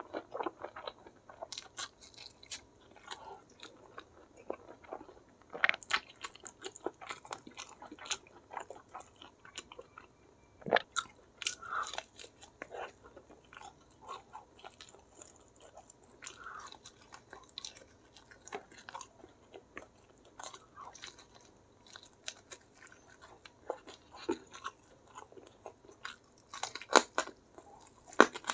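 Close-miked chewing and biting: a person eating spicy fried chicken with rice by hand, with irregular wet mouth clicks and crunches and a few sharper bites standing out.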